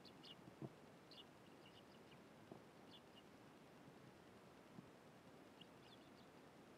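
Eurasian tree sparrows chirping faintly in short, scattered calls, with a few soft taps between them.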